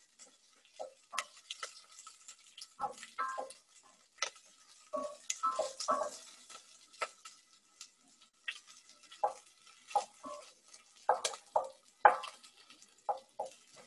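A wooden spoon stirring cubed onions in a stainless steel pot, with irregular knocks and scrapes against the pot's sides and bottom. The onions are being sautéed until glassy.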